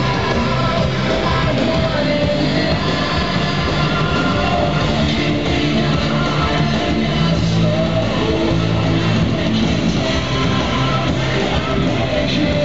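Loud rock music with guitar and singing, played over a PA system as a laser-show soundtrack.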